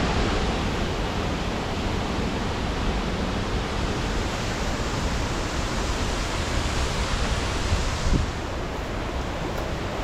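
Waterfall on Little Carr Creek, a steady full rush of falling water with a brief low bump about eight seconds in.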